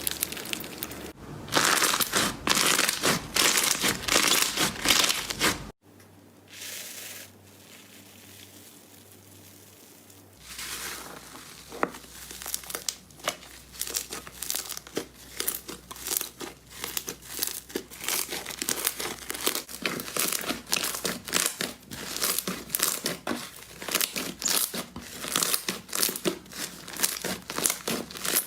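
Slime being squeezed and pulled by hand, making a dense run of small wet pops and crackles. About six seconds in it cuts to a quieter stretch, and the crackling starts again about ten seconds in.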